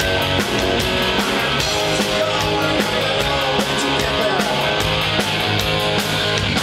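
Live rock band playing loud: electric guitar, bass guitar and drum kit, with regular drum and cymbal hits.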